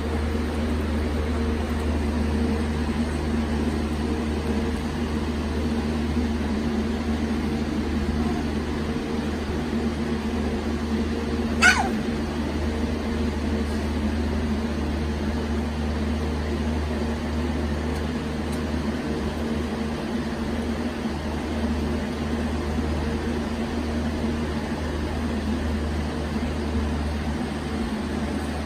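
Steady low machine hum with a few fixed tones. About twelve seconds in comes one brief, sharp, high squeak.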